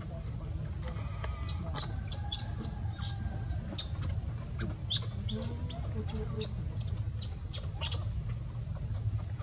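High-pitched animal chirps and squeaks, several a second, from about a second in until near the end, over a steady low rumble.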